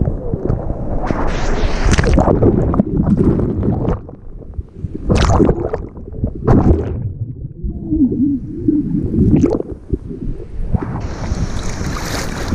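Surf water washing over a GoPro held in the waves: muffled underwater rushing and gurgling as the camera goes under, broken by sharp splashes as it breaks the surface. A hissing rush near the end.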